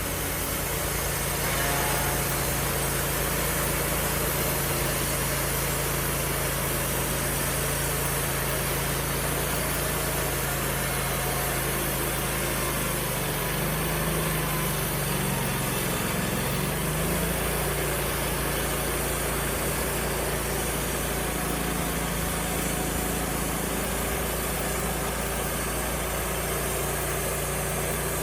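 Wood-Mizer LT35HD sawmill engine running steadily. Its pitch sags and recovers for a few seconds about halfway through, as if briefly loaded.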